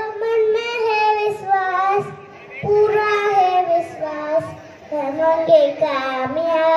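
Young girl singing into a microphone, one voice in slow held phrases with short breaks between them.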